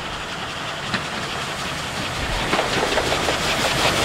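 Steam locomotive working a train of coaches toward the listener. Its rhythmic exhaust chuffs and the rail noise grow steadily louder as it approaches.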